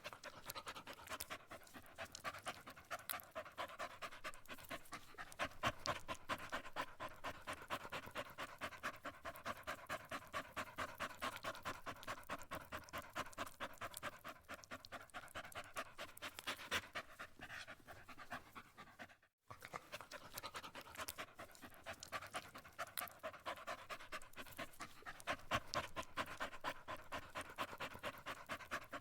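An animal panting: quick, even breaths in and out, with a brief break about two-thirds of the way through.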